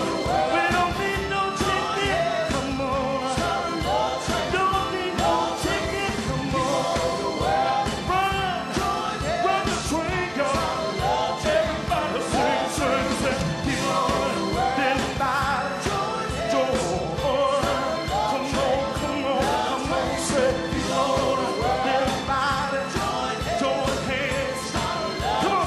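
Live R&B band playing, with a man singing lead into a handheld microphone over electric guitars and a drum kit keeping a steady beat.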